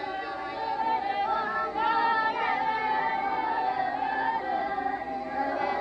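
A group of high voices singing together, the melody bending up and down.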